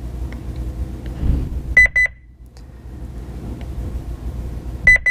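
Honeywell Lynx Touch L5210 alarm panel beeping in response to key fob button presses during enrollment: a double beep about two seconds in, then a quick run of beeps near the end. A low steady hum lies underneath.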